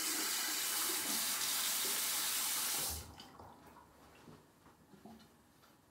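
Tap water running into a bathroom sink, shut off about three seconds in; a few faint clicks and knocks follow.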